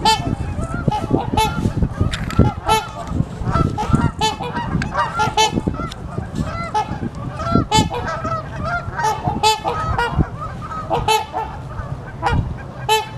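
A flock of geese honking, with many short calls overlapping all the way through.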